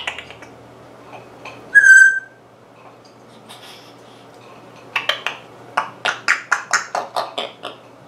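African grey parrot whistling once, loud and clear, about two seconds in. From about five seconds it gives a rapid run of short, sharp calls, about four a second.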